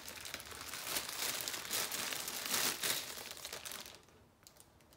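Clear plastic wrapping crinkling as a doll is pulled out of it. The crinkling is dense and busy, dies down about four seconds in, and leaves only a few faint clicks.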